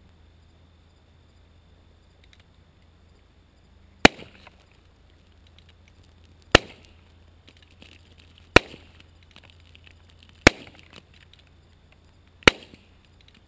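Five .22 rimfire shots from a Ruger Super Single Six single-action revolver, about two seconds apart, each a sharp crack with a short ringing tail.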